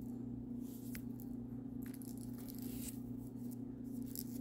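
Spider plant leaves rustling and brushing close to the microphone in a few soft, brief rustles, over a steady low hum.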